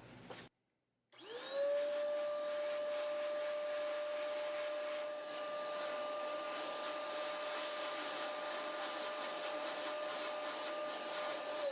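A small high-speed electric motor spins up about a second in and runs with a steady whine over a hiss, then winds down at the end.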